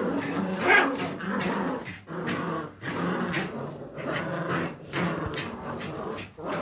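Jagdterrier puppies whimpering, yipping and growling in a string of short cries as they jostle under their mother to nurse, with one louder yelp a little under a second in.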